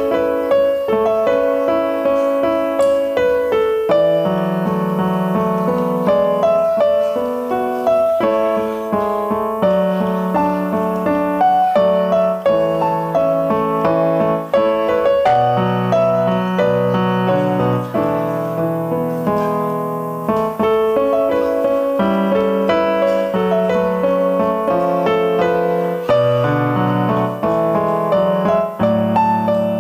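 Yamaha digital piano playing a solo piece, a melody in the right hand over left-hand bass notes that change every second or two.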